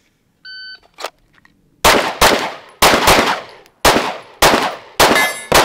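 A shot-timer start beep, then a string of about eight pistol shots fired in quick pairs. Near the end steel targets ring with a thin metallic tone as they are hit.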